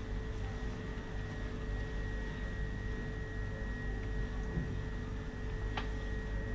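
Steady electrical hum with a faint steady whine over it, and one light click near the end.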